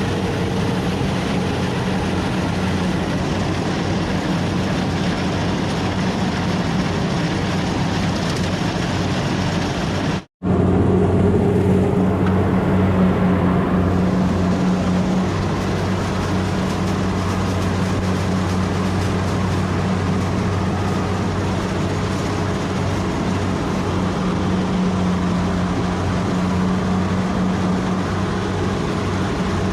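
Rice combine harvester's engine and machinery running steadily with a deep hum, broken by a momentary gap of silence about ten seconds in.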